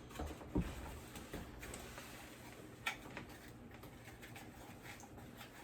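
Faint handling noise of items and packaging being turned over, with two light knocks, one about half a second in and one near three seconds in.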